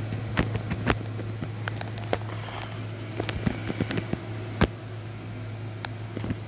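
A steady low hum with irregular sharp clicks and crackles scattered through it, a couple of them louder than the rest.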